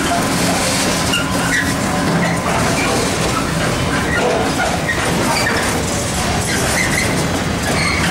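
Freight train of loaded container flat wagons rolling steadily past: continuous wheel-on-rail rumble and clatter, with scattered brief high squeaks.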